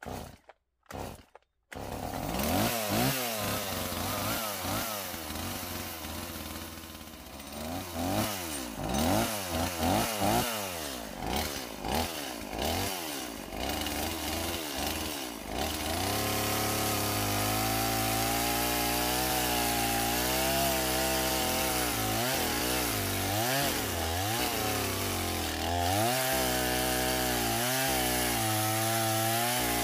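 Two-stroke gas chainsaw being started: two short sounds, then the engine catches just under two seconds in and is revved up and down in quick bursts. From about sixteen seconds in it runs steadily at full throttle, its pitch wavering under load, as it cuts into the trunk of a dead standing tree to fell it.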